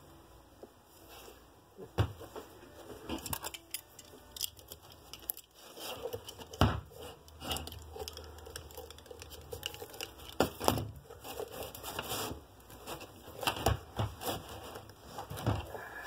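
Hands picking and scraping at the exposed cork filler of a Red Wing Iron Ranger boot with its outsole removed, then gripping and flexing the leather upper and welt: irregular scratching and rustling with several sharp knocks as the boot is handled.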